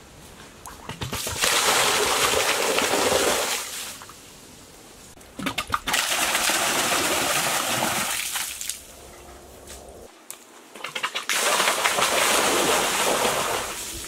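Water rushing and splashing into a small pool, in three spells of two to three seconds each with quieter gaps between.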